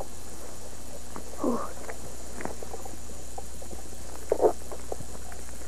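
A cat meowing twice: a short falling meow about a second and a half in, then a louder one about four and a half seconds in. Small clicks from footsteps in grass sit over a steady hum and hiss from the old home-video tape.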